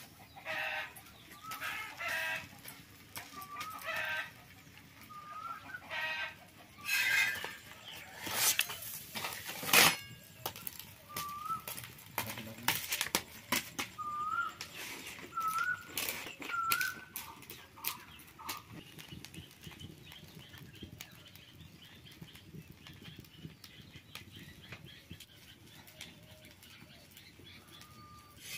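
Chickens clucking and calling, with short rising chirps now and then through the first twenty seconds, over scattered clicks and rustles. A sharp knock about ten seconds in is the loudest sound.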